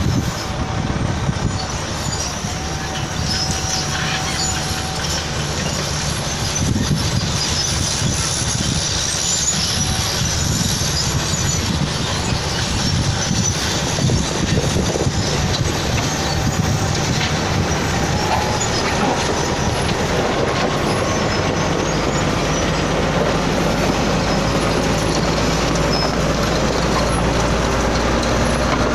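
Komatsu GD555 motor grader's diesel engine running steadily under load while it spreads gravel aggregate. The engine note rises and grows a little louder over the last third.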